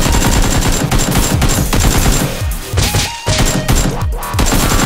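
Rapid automatic gunfire in long, dense bursts, with short breaks about three and four seconds in.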